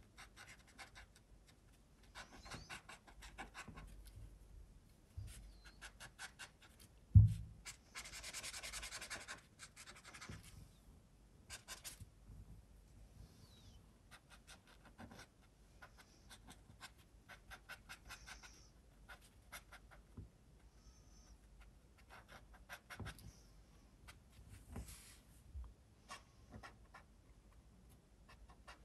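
Ecoline brush-pen marker dabbing and stroking on watercolour paper in many short, scratchy strokes, with one longer scrubbing stroke near the middle. A single low thump about seven seconds in is the loudest sound.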